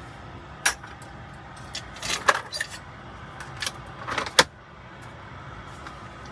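Several sharp clicks and knocks of a mug and coffee-maker parts being handled while coffee is made, the loudest a little over four seconds in, over a steady low hum.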